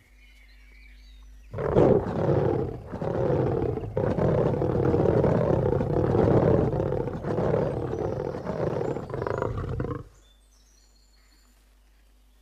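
A lion roaring: one long, loud roar that starts about a second and a half in, rises and falls in several swells, and cuts off about ten seconds in.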